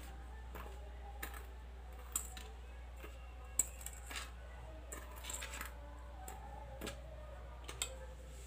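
Steel spoon clinking and scraping against a small steel bowl while stirring dry powdered sugar and spices, giving a scatter of light, irregular clicks.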